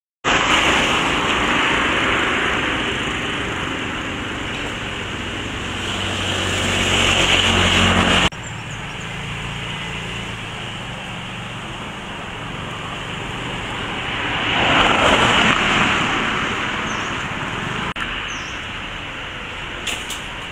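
Street traffic noise with vehicles passing. One vehicle swells up and cuts off suddenly about eight seconds in, and another passes about fifteen seconds in.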